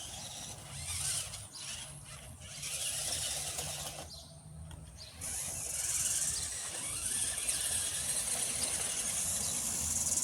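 Toy RC rock crawler truck's small electric motor and gears whirring as it drives, in short bursts early on and then running steadily from about halfway through.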